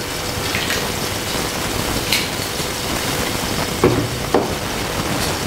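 Salted water with olive oil boiling in a stainless-steel saucepan on a gas hob, a steady bubbling hiss. A few light knocks sound about two and four seconds in.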